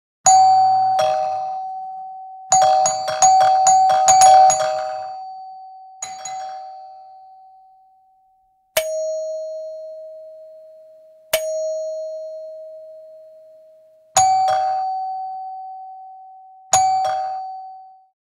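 Two-tone doorbell chime ringing over and over, a high ding followed by a lower dong, each note struck sharply and left to fade. Near the middle it is rung in a quick run of about half a dozen strikes in a row, as if the button were pressed repeatedly.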